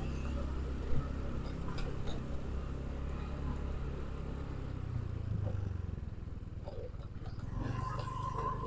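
Motorcycle engine running at low speed while riding slowly, a steady low rumble with a single knock about a second in; a steady high tone comes in near the end.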